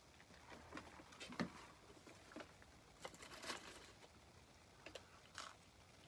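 A small dog licking and eating food scraps off a crinkly paper wrapper: faint, scattered clicks and rustles, the loudest about a second and a half in.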